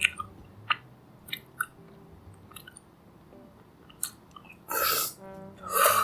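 Close-miked mouth sounds of eating a chocolate-coated ice cream bar: scattered wet chewing clicks, then two louder crackling bites or slurps near the end. Faint brass swing music plays underneath.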